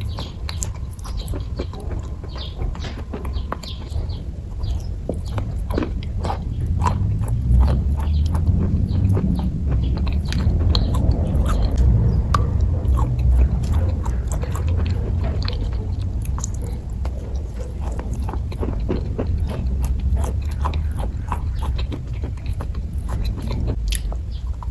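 Close-up chewing and biting of kaju katli (cashew fudge): soft, wet mouth sounds with many small clicks, continuing throughout.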